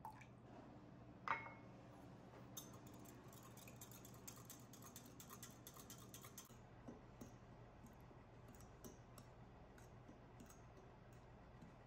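Faint kitchen sounds. A single glassy clink comes about a second in, then a few seconds of quick light clicking as a utensil whisks cream and egg in a glass measuring cup. After that come slower, sparser ticks and scrapes of a fork stirring the liquid into flour in a glass bowl.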